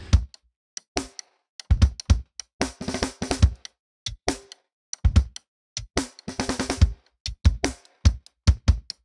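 Drum kit hits: separate kick and snare strokes in an uneven, broken pattern, some single and some in short clusters, with silent gaps between them.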